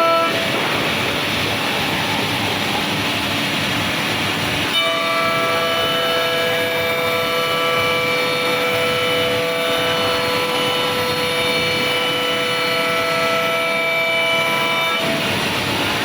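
Bacci Artist CNC woodworking machining center running: a steady spindle whine of several held pitches over a constant machining noise. The whine weakens about half a second in, comes back strongly about five seconds in, and shifts again near the end.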